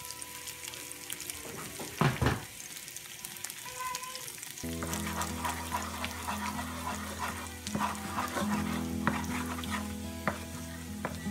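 An egg frying in hot olive oil, crackling and sizzling in the pan, while a wooden spatula stirs and scrapes it; a loud clunk about two seconds in. Background music plays, fuller from about halfway.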